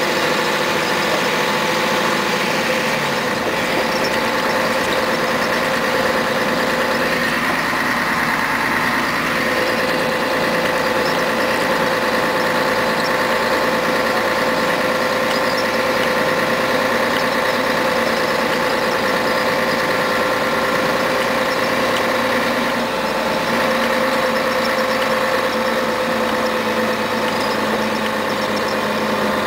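Scania CN113CLL city bus's diesel engine and drivetrain running steadily under way, heard from inside the passenger cabin, with a steady whining tone over the engine. The tone changes for a moment about seven to nine seconds in.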